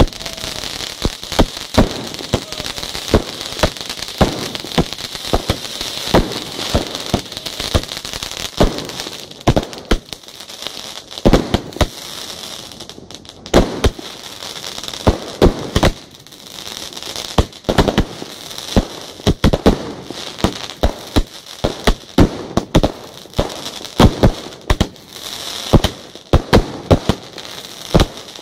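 Fireworks display going off close by: rapid, irregular bangs from shells and cakes, several a second at times, over a continuous crackling hiss.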